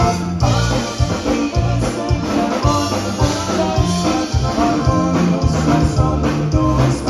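Live conjunto band music: button accordion carrying the melody over acoustic guitar, electric bass and drum kit, with a steady beat.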